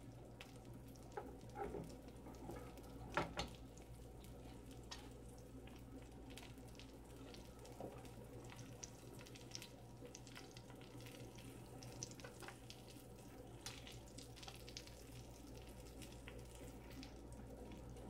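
Butter sizzling faintly in a skillet under a sandwich that is toasting on its first side, with scattered small pops and crackles. A single louder knock comes about three seconds in, over a low steady hum.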